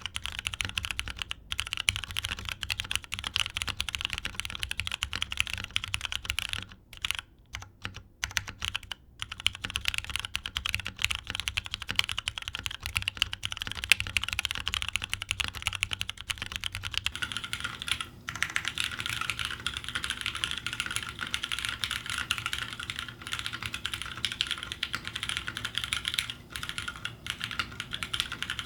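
Steady typing on a Float65 keyboard with lubed Cherry MX Brown tactile switches, an FR4 plate and GMK keycaps: a dense run of keystroke clicks with a few short pauses about a third of the way in. About two-thirds through, the recording switches from a studio condenser mic to the camera's built-in mic, which changes the tone of the clicks and the background hum.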